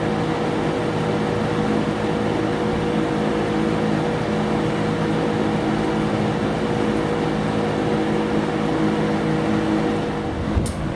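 Berns Air King PR20P 20-inch box fan running, with a steady rush of air and a steady motor hum. Near the end there is a sharp click, after which the hum stops and the sound falls away.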